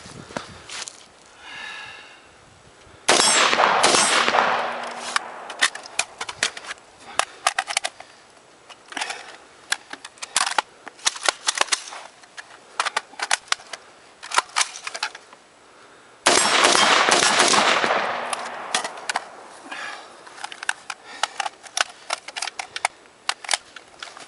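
AR-15 rifle fired in strings of rapid shots: two loud, dense volleys start suddenly about three seconds in and again around sixteen seconds in, with many sharp single shots between and after them. A struck steel target rings briefly near the start.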